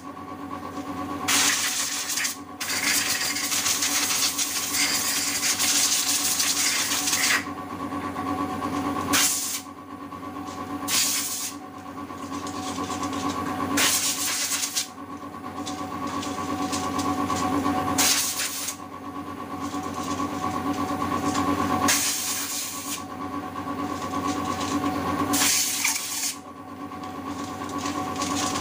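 Carburetor parts being cleaned with solvent: hissing bursts that come and go, most lasting about a second and one about five seconds early on, over a steady machine hum with a few held tones.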